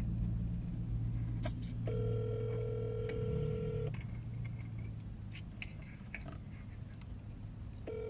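A phone call's ringback tone from a smartphone speaker: a steady two-second ring about two seconds in, then a four-second pause, then the next ring starting near the end, over a low steady hum. The call rings unanswered.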